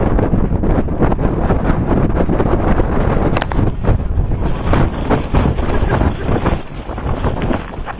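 Strong wind buffeting the microphone in a low, rumbling roar, with a single sharp click about three and a half seconds in and more hiss and flutter in the second half.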